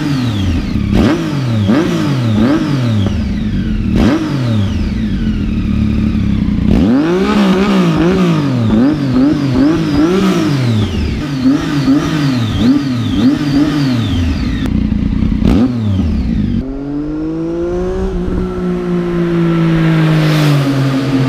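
Triumph Tiger 800's three-cylinder engine running through a Yoshimura end can with its dB killer removed, the throttle blipped over and over in quick rises and falls of revs. About two-thirds of the way in it changes to a steadier engine note, pitch stepping a couple of times, as the bike rides toward the camera.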